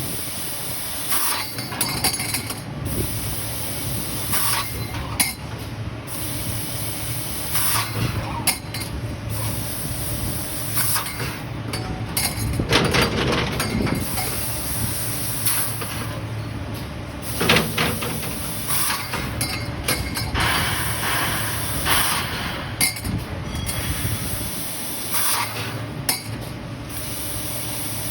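Automatic laser tube-cutting machine cutting stainless-steel round tube: a high hiss that breaks off and resumes many times over a steady machine hum, with scattered metallic clinks.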